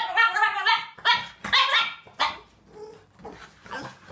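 Small black puppy making drawn-out, howl-like bark vocalizations whose pitch bends up and down: two long ones in the first two seconds, then shorter, quieter ones. This is the dog "talking" back when urged to say a word.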